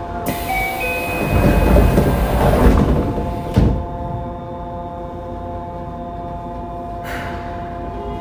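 Yokohama Blue Line 3000A subway car standing at a station with a steady electrical whine: a burst of air hiss with a low rumble for the first few seconds, a single sharp thud about three and a half seconds in, and a short hiss of air near the end.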